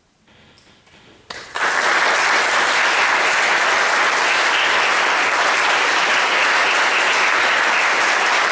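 Audience applauding: after a brief hush, a few first claps come about a second and a quarter in, then steady, dense applause from about a second and a half.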